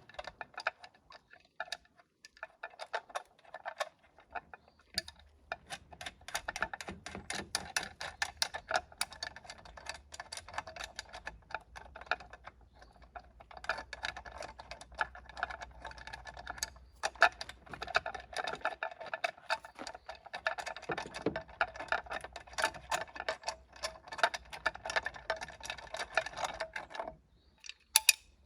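Rapid, irregular clicking and rattling of hard objects being handled, with short lulls and a stop about a second before the end.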